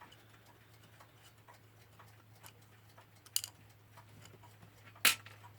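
A clock ticking faintly and evenly, about two ticks a second, over a steady low hum. Two sharper clicks stand out, one about three and a half seconds in and a louder one near the end.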